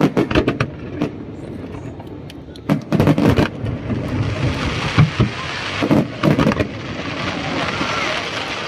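Aerial fireworks shells bursting overhead in quick clusters of sharp bangs, with a steady rushing noise between the volleys.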